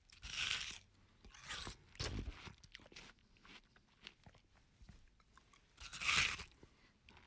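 A person biting into and chewing crunchy food. There are loud crunching bites about half a second in and again near the end, with softer crackly chewing between.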